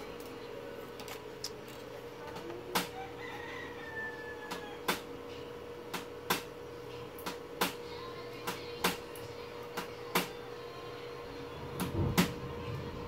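Sharp clicks every second or so over a steady hum, with a rooster crowing faintly about three to four seconds in.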